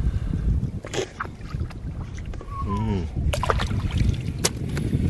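Wind rumbling on the microphone over shallow lapping water, with sharp clicks of wild oyster shells knocking together and water dribbling off them as they are dropped into a woven flax basket, mostly in the second half. A brief falling voice sound comes just before the clicks.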